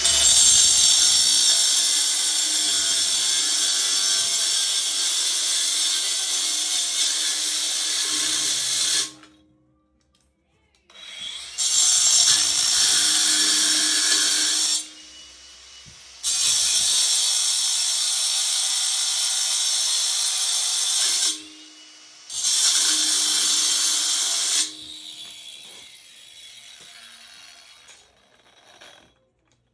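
Electric grinder cutting into the steel bolts of an air-conditioner compressor, running in four long bursts with short pauses between them; the last one fades out.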